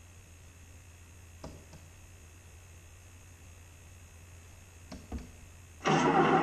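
A low steady hum with a few faint clicks, about a second and a half in and twice near five seconds. Near the end a much louder, steady engine-like sound starts abruptly.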